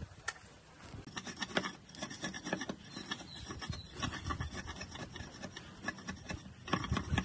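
Steel blade scraping the surface of a large wooden log, a quick, irregular run of rasping strokes that starts about a second in.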